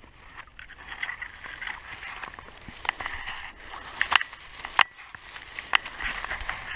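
Dry grass and reed stems rustling and crackling right against the microphone as a person shifts and reaches through them, with several sharp snaps.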